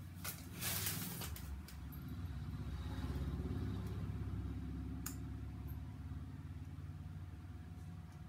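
A vehicle engine droning, building over a couple of seconds and slowly fading as it passes. A short rustle about a second in and a light click about five seconds in.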